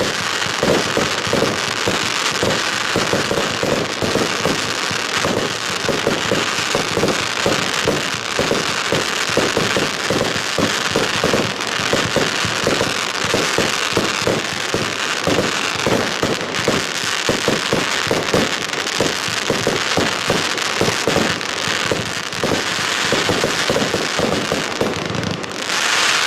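A 100-shot 25 mm fireworks cake firing, shots thumping out of the tubes in rapid succession, several a second, under continuous crackling and bursting of the shells overhead.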